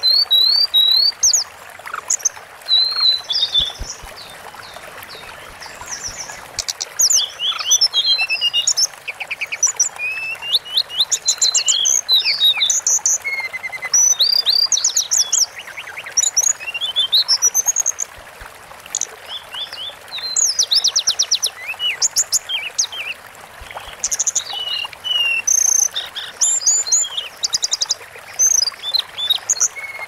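Tledekan gunung singing: rapid high trills and short whistled, sliding notes, delivered in clusters every second or two, over a faint steady hiss like running water.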